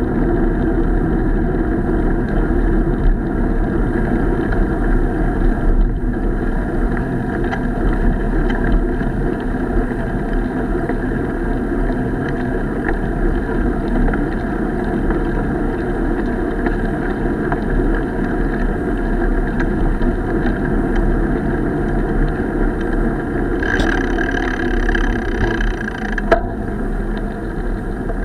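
Steady rumbling ride noise and wind buffeting on a camera moving along a dirt trail. Near the end a high, pitched squeal sounds for about two and a half seconds.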